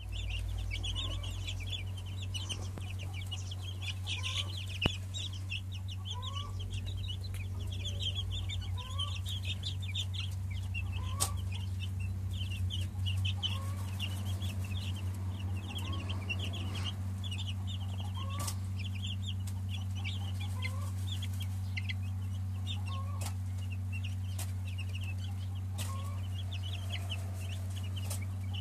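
A brood of young chicks peeping continuously, many short high peeps overlapping. A steady low hum runs underneath.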